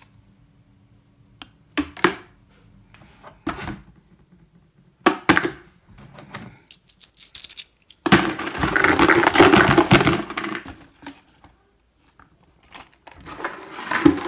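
Coins clinking into a plastic bucket: a few single drops, then a long pouring clatter about eight seconds in, and a shorter rattle near the end.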